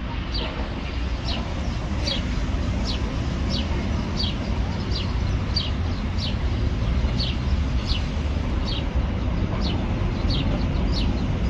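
A bird calling over and over, one short falling chirp about every two-thirds of a second, over a steady low rumble.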